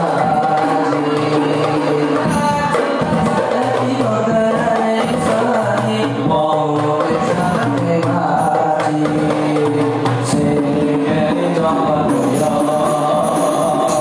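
Rebana frame drums beating a steady rhythm under a sung melody, during an ensemble practice.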